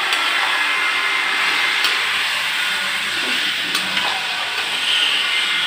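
Mutton and onions frying in hot oil in a kadhai, sizzling steadily as garlic-ginger paste is stirred in, with the spoon clicking against the pan a couple of times.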